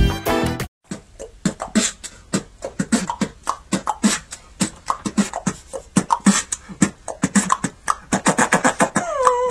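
Music cuts off abruptly under a second in, then a person beatboxes into a handheld microphone: a quick, steady stream of percussive mouth sounds that gets denser near the end. Near the end a held tone joins in over the beat.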